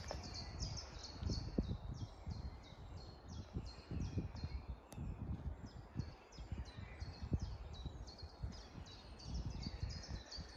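A bird repeating a short high chirp over and over, about three times a second and very evenly, with a low uneven gusty rumble underneath.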